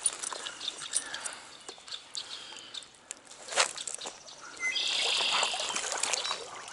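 Water splashing and trickling, with scattered clicks, as a hooked brook trout is brought in and handled at the stream's edge. There is one sharper splash or knock about three and a half seconds in. About two-thirds of the way through, a steady high chirring trill from some small animal sets in.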